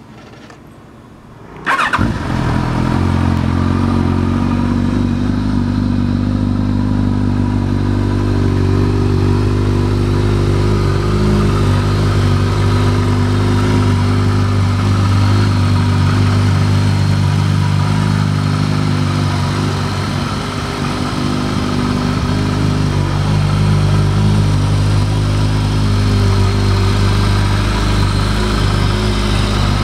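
Kawasaki ZRX1200 DAEG's inline-four starting up about two seconds in, then idling steadily through a Wyvern full titanium exhaust.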